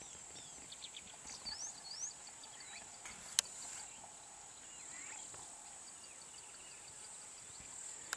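Faint bush ambience: a steady high insect drone with rows of quick ticking calls, a few short rising bird chirps in the first two seconds, and a single sharp click a little past three seconds in.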